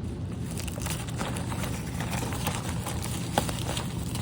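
Hot Wheels packaging being handled: a run of small irregular clicks and rustles of card and plastic, with one sharper click about three and a half seconds in, over a steady low hum.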